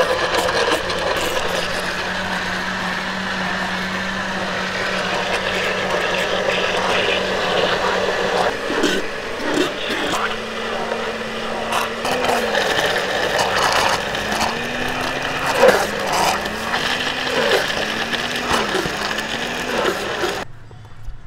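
Electric countertop blender motor running as it purees fruit into a smoothie, a steady hum with scattered clacks. About halfway it stops briefly and restarts, and its pitch then repeatedly rises and drops again. The sound cuts off abruptly near the end.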